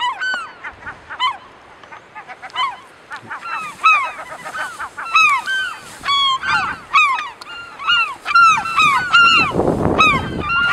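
Gulls calling over and over in alarm, several birds overlapping, each call a short note that rises and falls in pitch. They are stirred up by a northern elephant seal moving among their nests. A short low rumble sounds near the end.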